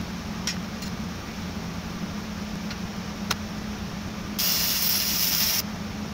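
Wire-feed (MIG) welder laying a short tack weld: one burst of hiss lasting about a second, starting a little past the middle, over a steady low hum, with a few faint clicks before it.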